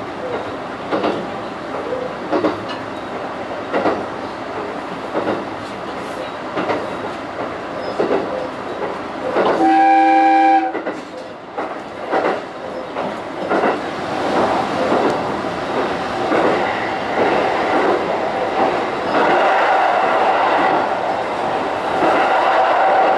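Diesel railcar running along the track, its wheels clicking over the rail joints, with one horn blast about a second long roughly halfway through. In the second half the running sound grows louder and steadier, with a steady hum, as the train passes through a snow shed into a tunnel.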